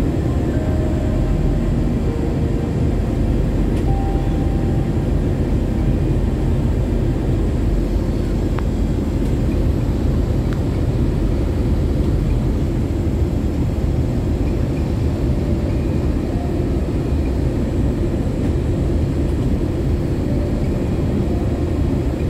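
Steady cabin drone inside an Airbus A321-211 airliner in flight: engine and airflow noise heard through the fuselage, even and unbroken.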